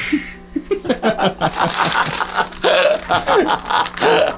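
Men laughing: a run of quick, breathy chuckles.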